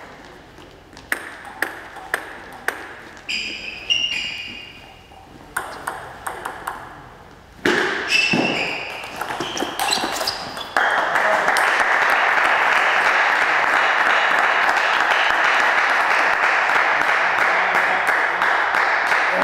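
A celluloid-type table tennis ball ticks on the table several times as it is bounced before the serve. A short rally of sharp ball clicks on bats and table follows, with a few ringing pings. About eleven seconds in, a steady, loud wash of noise sets in and holds.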